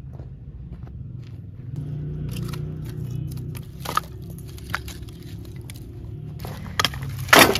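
Firewood being handled: dry branches and split logs knocking and cracking against each other in a few sharp knocks, with a loud short clatter of wood near the end. A steady low rumble runs underneath.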